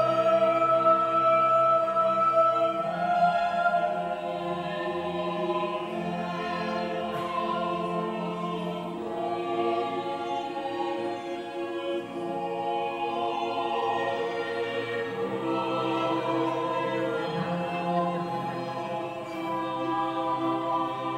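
Slow choral music: voices holding long, sustained chords that shift every few seconds.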